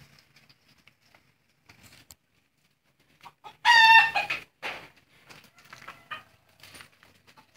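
Rooster giving one loud, short call about halfway through, followed by softer clucking and scattered small sounds.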